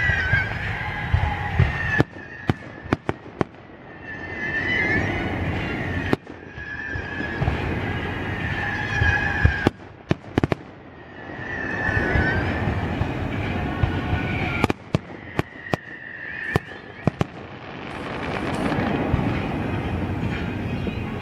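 Aerial fireworks going off in quick succession: sharp bangs and crackling reports over a continuous rumble, with high wavering whistles between the bursts.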